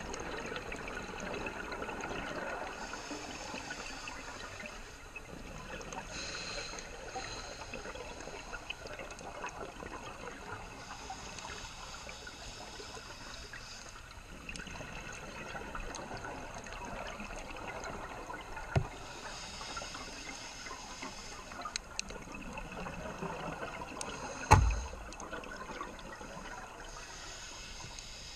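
Underwater scuba breathing: a diver's regulator hissing on slow breaths every several seconds, with exhaled bubbles running between them. Two knocks in the second half, the later one a low thump and the loudest sound.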